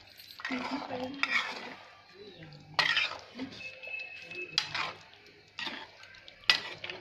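Metal slotted spoon stirring fish pieces through thick masala in a metal pot, coating the fish. It scrapes at first, then clinks sharply against the pot four times, over a faint sizzle of the masala cooking.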